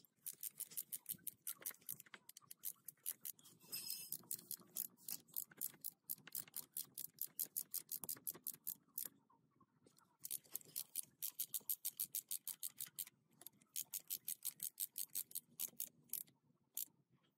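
Socket ratchet wrench clicking in quick runs of about six clicks a second, broken by short pauses, as bolts on an engine block are turned.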